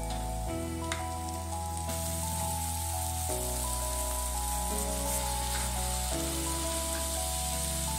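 Chopped nettles, carrots and onion sizzling in oil in a wok as they are stirred with a wooden spatula. The sizzle grows louder about two seconds in. Background music of held chords plays under it.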